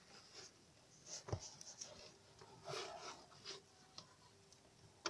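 Faint rubbing and rustling with a few light knocks and clicks as a hand works a rubber CV-joint boot on a car driveshaft.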